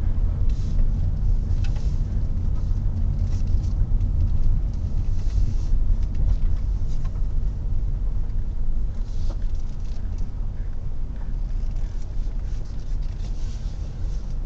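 Low, steady engine and road rumble of a car driving slowly, picked up inside the cabin by a windscreen dashcam, with a few faint scattered clicks.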